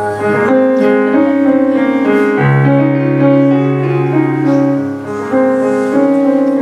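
Piano accompaniment playing an instrumental passage between sung lines, with held chords changing every second or so.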